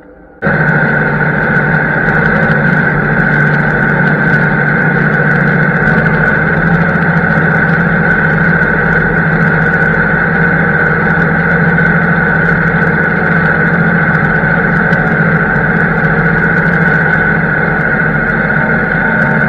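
Harvest farm machinery running steadily, a constant engine drone with a steady high whine over it, cutting in abruptly just after the start.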